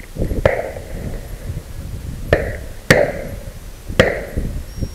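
Four shotgun shots, each a sharp report with a short ringing tail. Two come about half a second apart in the middle.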